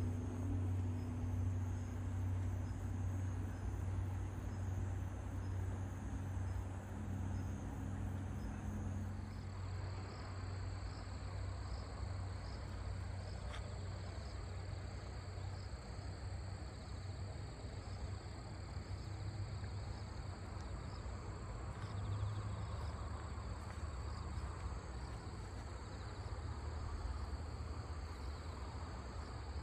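Autumn insects, such as crickets, trilling steadily in high-pitched pulsing chirps over a steady low rumble. A low sustained humming tone fades out about nine seconds in.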